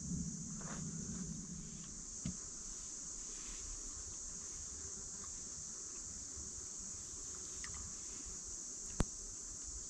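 Steady, high-pitched insect chorus droning evenly throughout, with a soft knock about two seconds in and a sharp click about nine seconds in.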